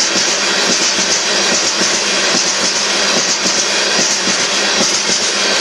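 Loaded freight cars of a rock train rolling past close by: a steady, loud noise of steel wheels on the rails with irregular clicks.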